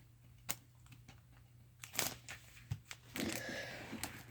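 Faint handling of a foil Pokémon booster pack and its cards: a few light clicks, then a soft crinkling rustle from about three seconds in.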